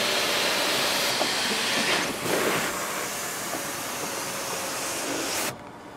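Electric panoramic sunroof of a 2013 Kia Sorento in motion, heard in the cabin as a steady rushing noise that drops away sharply about five and a half seconds in.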